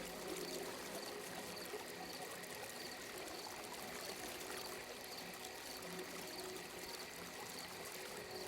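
Soft, steady flowing and trickling water from an ambient sleep soundscape, with faint steady tones beneath it.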